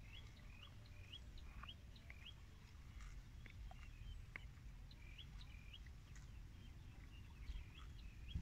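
Faint bird calls: short, rising chirps repeated in quick runs of a few a second, over a low steady rumble.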